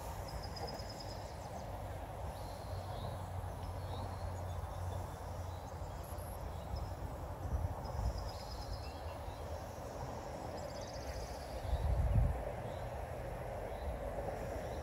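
Outdoor ambience: a steady low rumble with faint, short high-pitched chirps scattered through it. The rumble swells briefly about twelve seconds in.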